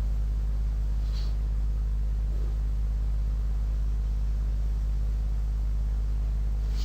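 Steady low hum with faint hiss, unchanging throughout, with one faint tick about a second in.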